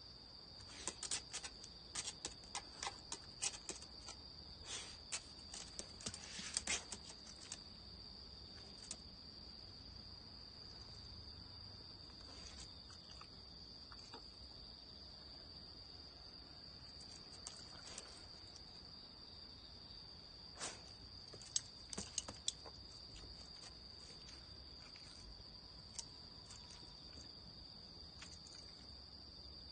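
Steady high-pitched trill of crickets, with scattered sharp clicks of a dog's claws tapping on a tile floor as it paws, bunched in the first third and again past the middle.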